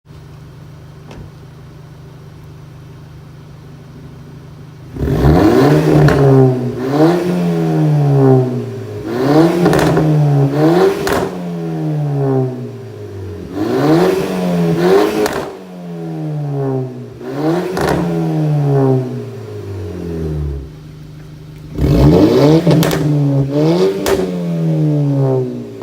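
Volkswagen Mk6 GTI's turbocharged 2.0-litre four-cylinder, breathing through a catless downpipe and Borla cat-back exhaust, idles steadily for about five seconds and is then free-revved about ten times, each rev rising and falling in pitch. Crackles and pops sound as the revs drop, from its tune, and it settles back to idle briefly near the end before revving again.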